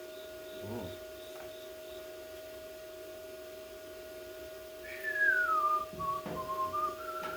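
A person whistling a short phrase about five seconds in: a single clear note that slides down in pitch, then rises a little, over a steady background hum.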